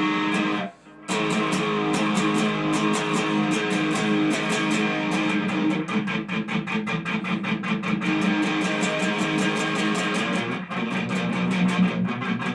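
Telecaster-style electric guitar playing a fast strummed riff made of many rapid strokes, with a short break about a second in.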